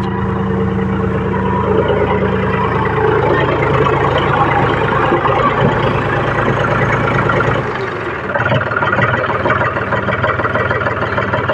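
John Deere 5050D tractor's three-cylinder diesel engine running at low speed close by. About eight seconds in, its deep low rumble drops away and it carries on rougher and more clattery.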